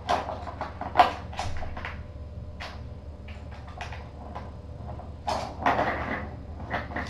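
Kitten batting at a hard plastic cat toy: a run of irregular knocks and clattering rattles, the sharpest knock about a second in and a busier clatter around five to six seconds in.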